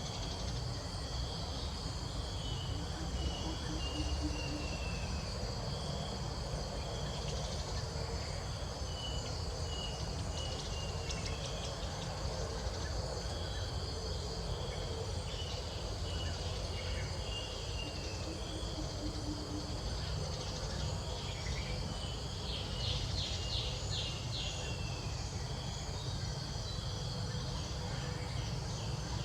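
Steady outdoor insect chorus: a continuous high-pitched drone. Short falling whistled calls come every few seconds, and a quick run of about five ticks sounds near the end.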